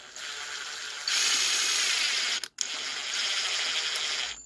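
Power drill driving a screw into wood, running with a steady high whine, getting louder about a second in, stopping briefly, then running again until the screw is set.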